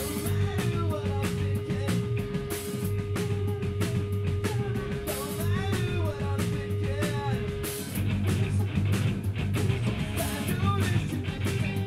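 Live rock band playing: electric guitars, bass guitar and drum kit with a man singing lead. A held note sits under the band and drops out about eight seconds in.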